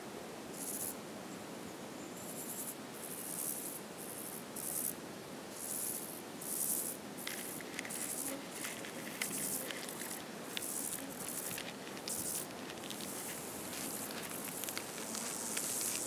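Insects chirring in many short, high, hissy bursts at an irregular pace over a soft, steady outdoor ambience, with a few faint rustling ticks.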